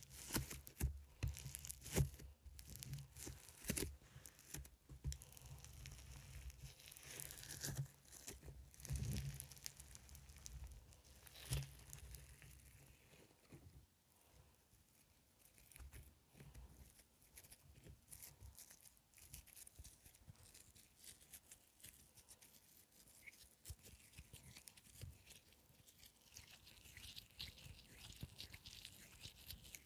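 Fingers squeezing and pulling apart foam slime, a fine crackling and tearing with many small pops. It is louder for the first dozen seconds, then softer.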